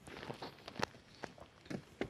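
Footsteps on wooden boardwalk planks: a few irregular short taps and knocks.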